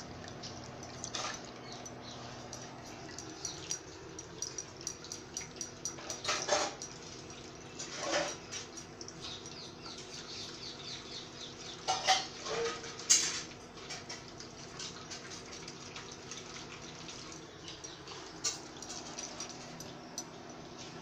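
Tamarind pulp squeezed by hand in a plastic strainer, wet squelching and juice dripping into the pan, over a steady low hum. A few sharper, louder short sounds stand out about a third of the way in and again just past the middle.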